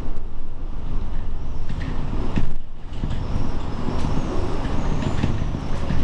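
Typhoon wind buffeting the building: a loud low rumble that swells and eases in gusts, with scattered rattles, and a brief lull about halfway through.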